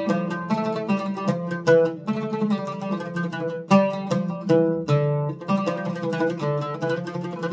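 Egyptian oud played solo: a quick, unbroken run of plucked notes, one at a time, with a held low note a little past the middle.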